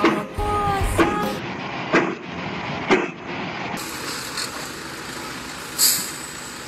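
Four sharp knocks about a second apart, then a concrete mixer truck's engine running steadily, with a short hiss near six seconds.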